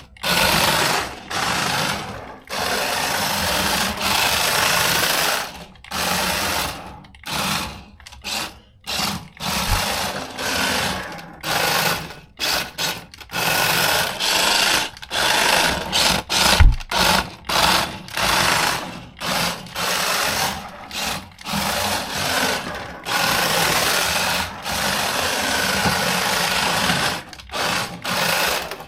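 Small brushed electric motor of a 1/24-scale toy RC drift car whining in stop-start bursts as it is driven. The throttle is all-or-nothing rather than proportional, so each burst is at the car's one speed, cutting in and out every second or so, with some longer runs.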